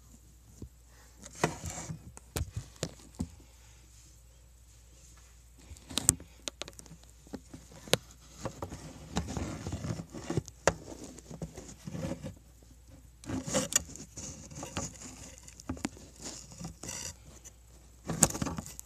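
Handling noise close to the microphone: rustling and scattered sharp clicks and knocks as the camera is moved about.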